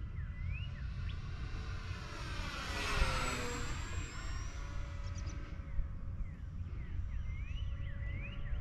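Electric motor and propeller of an E-flite P-51 Mustang 1.2 m RC plane making a low pass: a whine that peaks about three seconds in and drops in pitch as the plane goes by.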